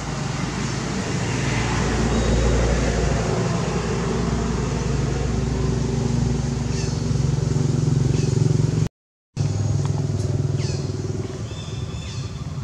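A motor vehicle engine running steadily, growing louder over the first couple of seconds. The sound drops out completely for a moment about nine seconds in, then the engine drone carries on.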